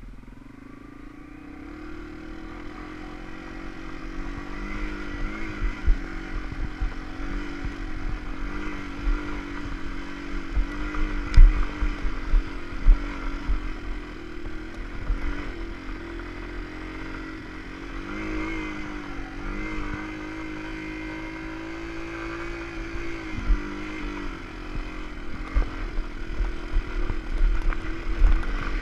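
Yamaha TW200's single-cylinder four-stroke engine running under load up a steep, rocky climb, getting louder over the first few seconds, its pitch wavering a little. Scattered knocks and clatter as the bike rides over loose rock.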